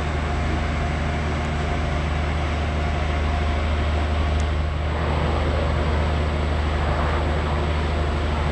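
Ferry's engines running with a steady low drone. A rushing noise grows in over it about halfway through.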